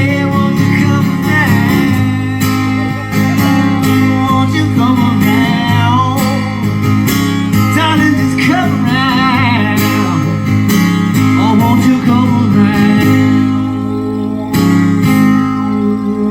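Live country music: a band with strummed acoustic guitar, and singing.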